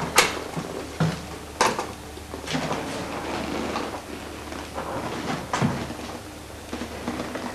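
A handful of sharp knocks and clatters at uneven intervals, like cupboard doors or drawers being handled, over a steady low hum.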